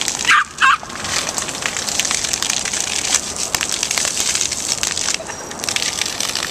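Yorkshire terrier giving two sharp, high barks about half a second in, over the steady hiss and splatter of a small ground-level water spout spraying onto wet concrete.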